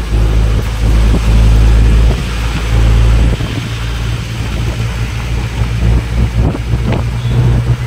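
Engine and road noise of a moving bus heard from inside the passenger cabin: a heavy, steady low rumble that eases about three and a half seconds in. A few short knocks or rattles come near the end.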